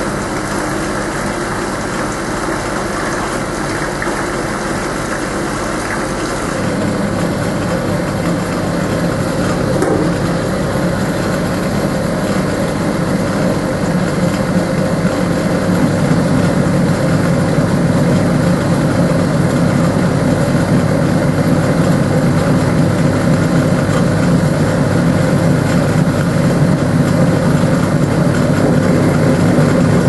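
Hoover W3590 single-tub washing machine pumping out its wash water, the drain pump humming steadily as water runs out of the hose into a steel sink. It grows louder about seven seconds in and again about fifteen seconds in.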